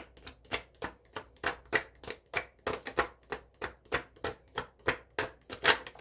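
A deck of tarot cards being shuffled by hand, an even run of short card slaps about four a second.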